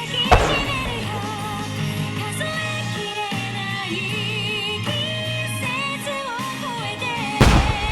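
A pop song with a singing voice plays, cut through by two loud firework shell bursts: one about a third of a second in and one near the end.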